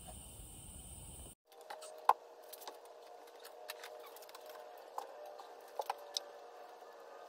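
Small items being set down on a wooden workbench: bottles of finish and a thin wooden stick, giving a handful of sharp clicks and knocks, the loudest about two seconds in and a quick cluster near the end, over a steady faint hum. The first second and a half is a different steady hiss with a high whine.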